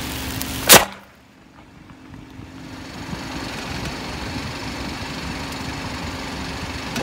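A firecracker goes off with one sharp, loud bang less than a second in. After a short lull, a car engine idles steadily.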